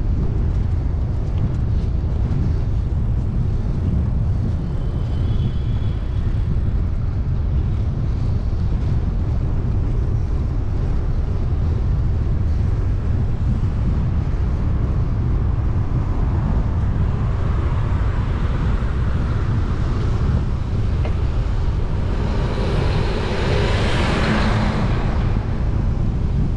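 Steady low rumble of wind on the microphone while cycling, with a motor vehicle growing louder, passing close and fading away near the end.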